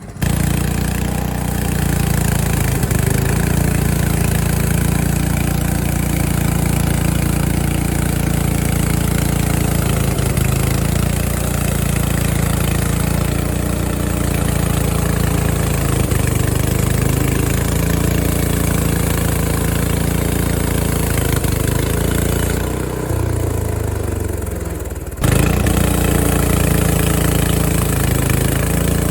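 Frontier OS23 portable bandsaw mill's gasoline engine running steadily at speed while the blade saws boards from an ash cant. About 23 s in, the engine winds down with a falling pitch, then the full running sound returns abruptly two seconds later.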